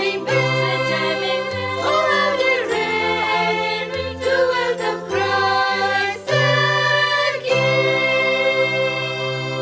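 Christmas music with choral singing over sustained instrumental chords and a moving bass line.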